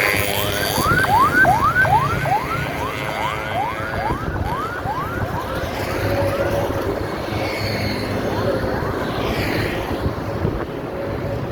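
Bus basuri horn sounding a fast run of rising whoops, about three a second, for roughly five seconds, with a few fainter ones later, over steady engine and road noise.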